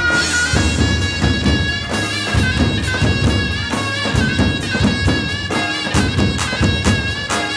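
Lebanese zaffe music: large double-headed drums beat a driving rhythm under a shrill reed pipe holding long melody notes.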